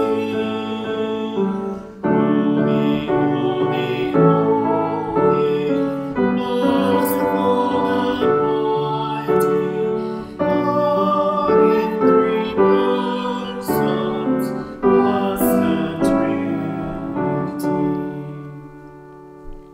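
Piano music playing a sequence of chords and notes, ending on a held chord that fades away near the end.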